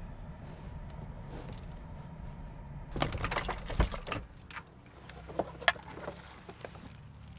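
Car keys jangling at the ignition about three seconds in, with a knock among them, as the SUV's idling engine is switched off and its low hum stops. Two sharp clicks follow a little later.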